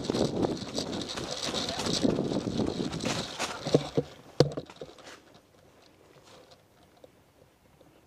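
A player's hurried footsteps on the ground with clothing and gear rustling, ending in two sharp knocks about a second apart near the middle; then only faint outdoor noise.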